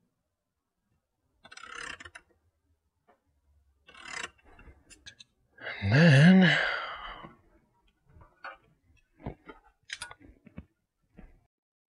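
Small clicks, taps and scrapes of a sheet-metal electrical box and hand tools being handled on a workbench. About six seconds in there is a loud, wavering voice-like sound lasting about a second and a half.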